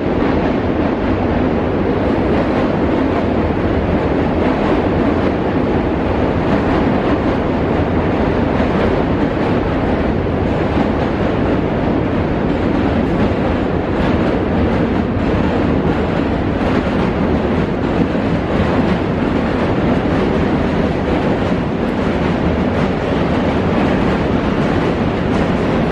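New York City subway train crossing the Manhattan Bridge overhead, its wheels rolling over the steel bridge structure with a loud, steady rumble.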